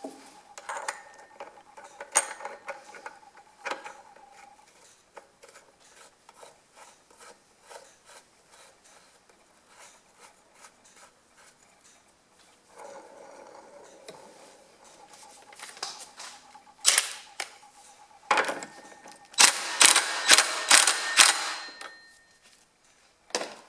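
Metal clicks and taps of hand tools on the Husqvarna A100 chainsaw's clutch as the clutch nut is fitted and tightened, with a quick run of loud sharp clicks near the end.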